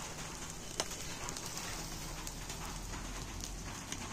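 Barbecue grilling over glowing charcoal: a steady sizzling hiss with a few sharp crackles and pops from the embers, the loudest about a second in.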